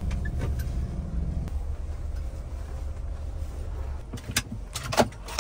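Low engine and road rumble inside a Mahindra Thar's cabin as it pulls in and stops. The rumble ends about four seconds in, followed by a few sharp clicks and knocks.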